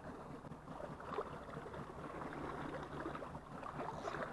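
Sea waves washing on the shore: a steady wash of surf with a faint crackle running through it.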